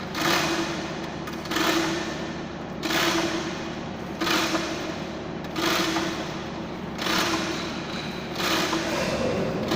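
Manual chain hoist being hauled by its hand chain: a burst of clattering chain and ratchet with each pull, repeating about every second and a half.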